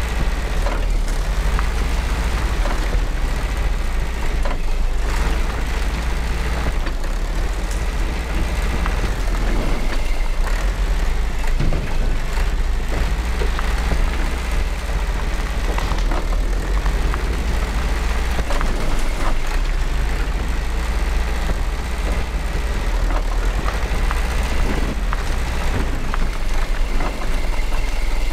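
Mitsubishi Colt Diesel truck's diesel engine running steadily with a deep rumble, mixed with intermittent knocks and rattles.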